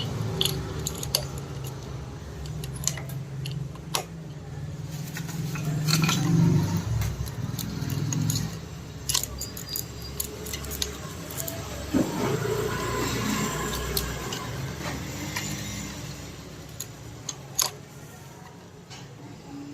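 Scattered metallic clinks and clicks of hand tools and engine parts being handled while a scooter's timing sprocket and cylinder head are fitted, over a low background rumble.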